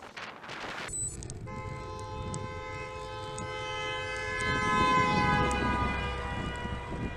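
A car horn held steady for about five seconds as the car comes up behind cyclists and passes them, its pitch dropping slightly as it goes by. Under it is the rising rumble of the car's engine and tyres on the road.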